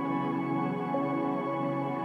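Ambient background music of steady held chords.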